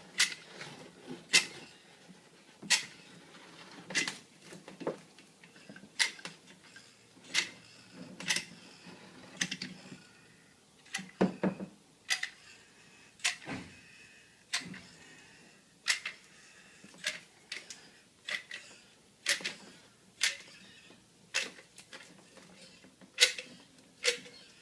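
Manual caulk gun being squeezed over and over to dispense adhesive, giving sharp, separate clicks about once a second at uneven spacing.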